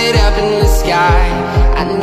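Background pop music with a steady kick-drum beat, about two beats a second, and a sung or synth melody line over it.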